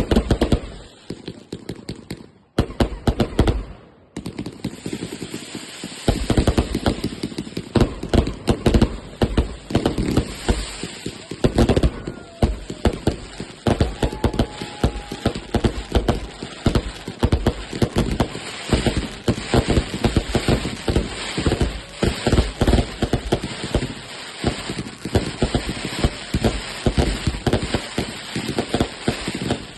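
Consumer fireworks going off: a long, rapid string of sharp bangs and crackles, many a second, with short pauses in the first few seconds and then nearly continuous firing.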